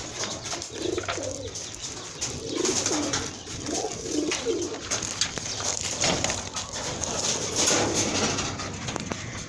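Domestic pigeons cooing, a series of short low coos repeating irregularly.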